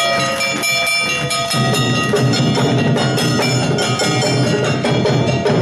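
Awa odori street-dance music from the troupe's band: gongs and drums keep a brisk, steady beat under held high melody notes, and the low drums come in heavier about a second and a half in.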